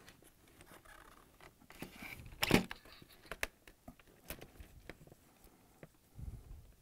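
Small plastic clicks and handling rustle as wire-harness plugs are pulled apart from a refrigerator dispenser's control board, with one louder click about two and a half seconds in.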